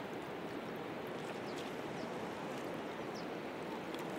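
River water rushing steadily past a shallow, rocky bank, an even, unbroken wash of noise.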